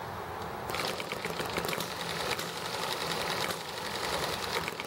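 Small ET1 model hit-and-miss engine running free with no belt load, firing with a rapid mechanical clatter that starts about a second in. It eases briefly around three and a half seconds in, then picks up again.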